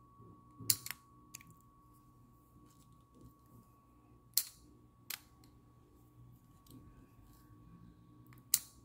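Hard plastic clicking and tapping as a small plastic crystal topper is pressed and fitted onto the head of a Magic Mixies Mixling toy figure. There are a handful of sharp clicks, one about a second in, two close together past the middle and one near the end, over a faint steady high hum.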